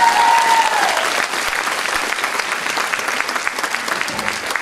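Audience applauding, loudest at the start and gradually thinning out. A single long high note sounds over the clapping in the first second.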